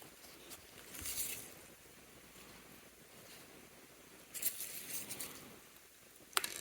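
Faint scratching and rustling of small steel tools working on a mechanical watch movement, in two short spells: about a second in and again around four and a half seconds in.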